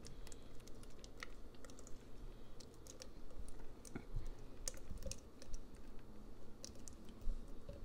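Silicone spatula scraping thick sea moss gel out of a nonstick pot into a plastic blender cup: scattered, irregular light clicks and taps of spatula and pot rim against the cup as the gel slides out.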